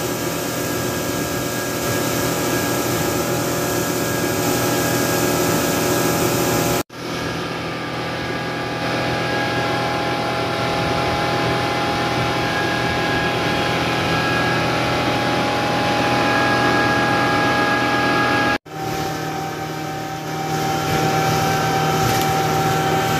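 Motorboat engine running steadily under way, with water rushing past the hull. The sound drops out for an instant twice, about a third of the way in and again near the end.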